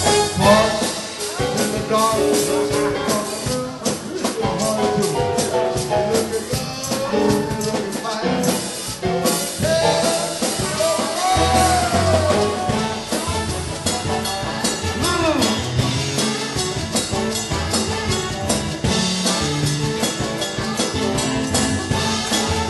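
Live band playing a song with a drum kit keeping the beat under a melody, and a man singing into the microphone.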